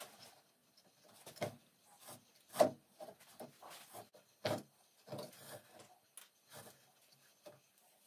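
Hand-stitching a leather costrel: thread is drawn through the stitch holes with scattered rubbing and light knocks against the wooden stitching clamp. The sharpest knocks come about two and a half and four and a half seconds in.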